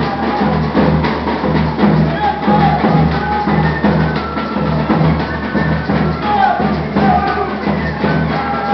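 A Peruvian típico ensemble playing music: a steady drum beat of about two strokes a second, with a melody line above it.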